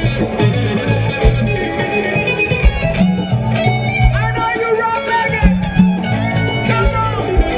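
Live band music: electric guitar over bass and a drum beat, with a long held note about halfway through.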